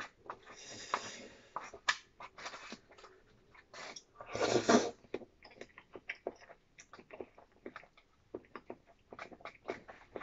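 Close-up eating sounds: wet mouth smacks and chewing with small clicks of wooden chopsticks against a plastic food pack, and one loud slurp about four and a half seconds in.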